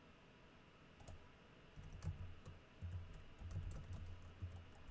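Faint computer keyboard typing: irregular runs of keystrokes starting about a second in.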